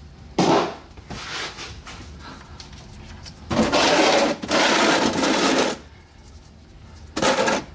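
Ratchet wrench clicking on the socket extension as the transmission drain plug is worked loose, in several bursts with the longest in the middle, mixed with metal tool scraping.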